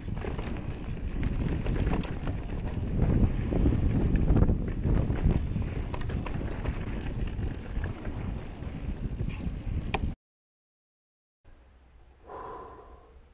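Mountain bike ridden fast over a gravel and dirt trail: tyres crunching over stones and the bike rattling and knocking over bumps, with wind on the microphone. It cuts off suddenly about ten seconds in; after a moment of silence a short faint tone is heard near the end.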